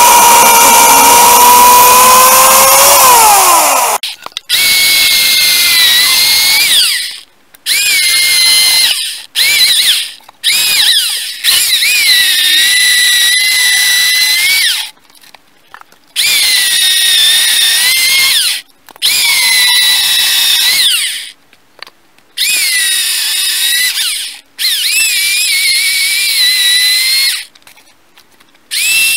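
Husqvarna 316E electric chainsaw whining as it cuts through logs. The motor runs steadily at first and its pitch sags about three seconds in as it bites, then it is triggered on and off in about ten short bursts of a few seconds each, the whine dipping under load in each cut.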